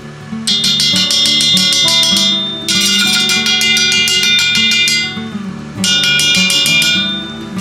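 Background music: rhythmic acoustic guitar strumming over a steady bass line, in three loud phrases with short dips between them.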